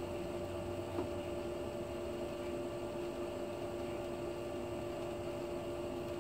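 Steady electric hum with two held tones over an even hiss, and one faint tick about a second in.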